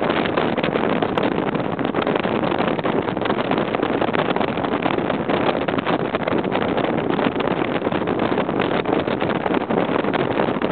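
A steady rush of wind buffeting the microphone over the running noise of a bass boat at high speed, driven by a Mercury 200 EFI outboard.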